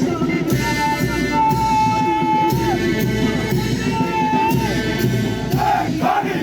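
Music with a steady beat and a sustained high melody line.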